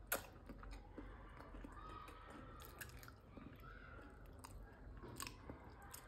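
Quiet chewing and nibbling on food, with scattered sharp clicks, the loudest just after the start.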